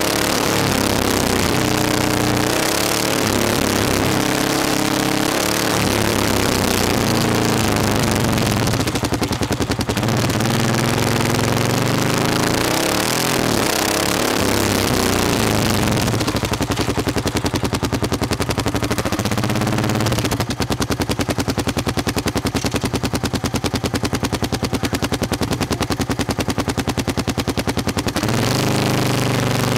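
Motorcycle engine running under way with wind noise over the microphone, its pitch rising and falling with throttle and gear changes. About two-thirds of the way in it drops to a slower, even beat as the bike slows almost to a stop, then picks up again near the end.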